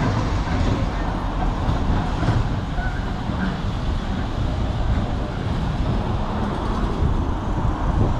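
Sintra tram running away along its rails, heard under a steady rumble of street traffic.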